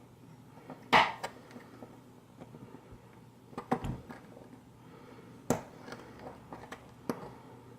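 Sharp metallic clicks and knocks of a small tool working at the stuck retaining clip of an ACE A527 padlock during disassembly: a handful of separate strikes, the loudest about a second in.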